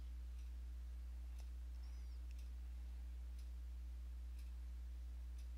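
Steady low electrical hum with faint, evenly spaced ticks about once a second.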